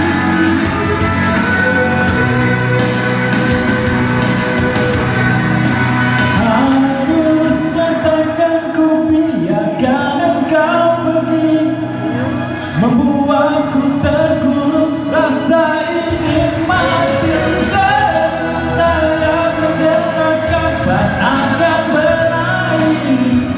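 Live band music with singing: a pop-rock ballad played loud and steady.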